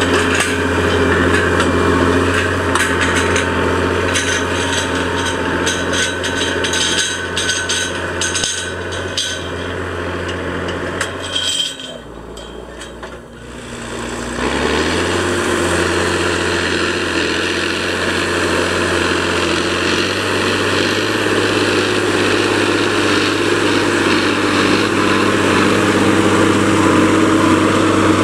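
Massey Ferguson 6480 tractor's six-cylinder diesel running steadily under load while pulling a subsoiler through dry ground, with many sharp clattering knocks over the first ten seconds. About twelve seconds in the sound drops away briefly, then the engine's pitch rises as it revs up and runs on steadily and a little louder.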